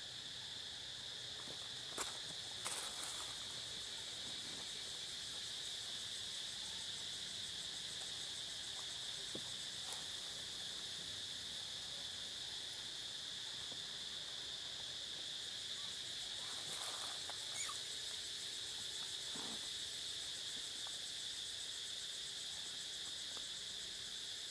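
Steady high-pitched insect chorus with a continuous shrill drone, broken by a few brief faint clicks or rustles about two seconds in and again around seventeen seconds.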